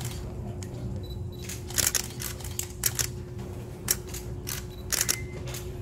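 Camera shutters clicking: about half a dozen sharp shots, some in quick pairs, a second or so apart, over a steady hum.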